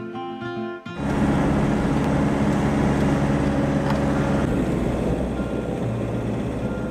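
Acoustic guitar music that cuts off just under a second in, followed by steady engine and road noise heard from inside a car's cabin on the move.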